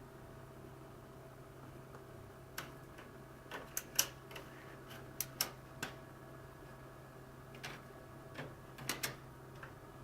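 About a dozen sharp, irregular clicks and taps of computer parts being handled during assembly, starting a couple of seconds in and bunching in the middle and near the end, over a steady low hum.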